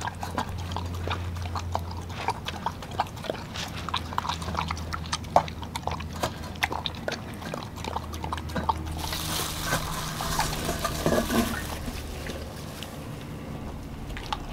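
A dog eating wet ground raw meat from a stainless steel bowl: quick, irregular smacking, chewing and licking as its tongue works the food around the bowl. A hiss joins for a few seconds about nine seconds in.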